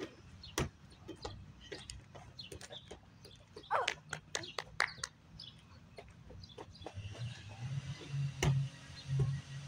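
A rubber ball knocking against a plastic toddler basketball hoop and backboard: a string of short knocks and clicks, loudest at the start and about eight and a half seconds in. A brief squeaky call sounds about four seconds in.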